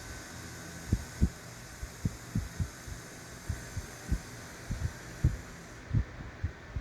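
Irregular soft, dull thuds and knocks, about a dozen, scattered unevenly over a steady hiss: parts of a car door latch assembly being handled and fitted together by hand.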